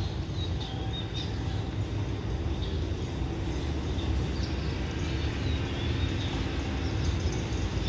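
Express train approaching from far off, a low steady rumble, with birds chirping now and then.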